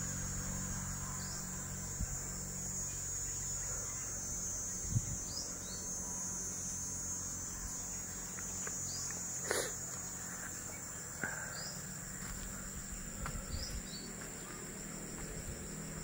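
Steady high-pitched drone of insects, with short bird chirps every few seconds and a single knock about halfway through.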